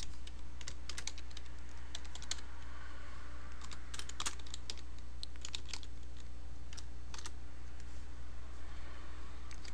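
Computer keyboard being typed on: irregular, scattered keystroke clicks as a short name is typed in, over a steady low hum.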